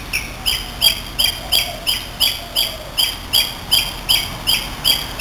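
An animal calling: a short high note repeated steadily, about three times a second.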